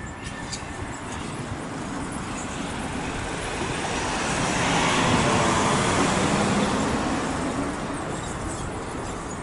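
A motor vehicle passing by in the street, its engine and tyre noise swelling to a peak about five seconds in, then fading away.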